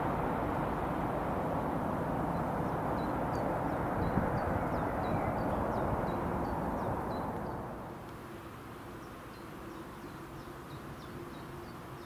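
Southeastern Class 395 'Javelin' high-speed electric train running away along the line, a steady rumble and rush that fades over about the first eight seconds. Faint, high, short chirps repeat through it and carry on after the train has gone.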